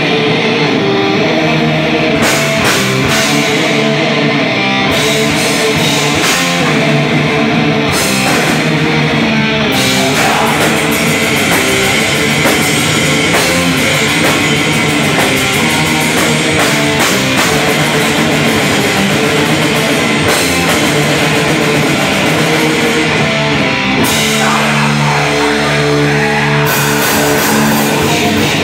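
Live heavy metal band playing loud: distorted electric guitars, electric bass and a drum kit. About 24 seconds in, the cymbals drop out for a few seconds under a held guitar riff.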